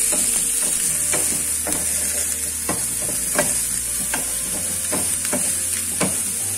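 Chopped spring onions and green capsicum sizzling in hot vegetable oil in a frying pan, with a steady hiss. A wooden spatula stirs them, scraping and tapping against the pan at irregular intervals.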